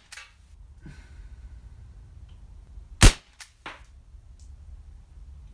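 KJ Works MK2 airsoft pistol, a Ruger Mark replica, firing a single shot over a chronograph about three seconds in: one sharp crack followed by a couple of faint ticks.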